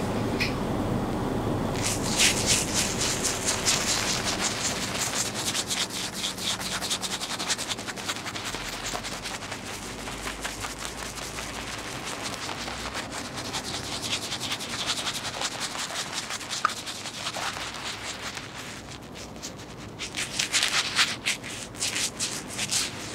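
Razor scraping over lathered stubble in quick, short, scratchy strokes, coming in three spells.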